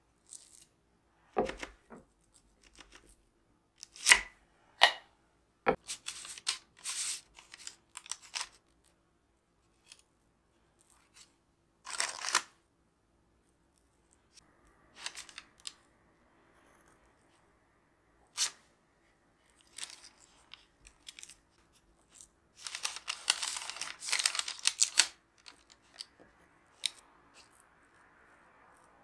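A small metal spatula spreads soft almond cream into pastry-lined tart rings, making scrapes and soft squishes. There are a few sharp clicks in the first six seconds as the blade strikes the rings, and a longer stretch of busy scraping about two-thirds of the way in.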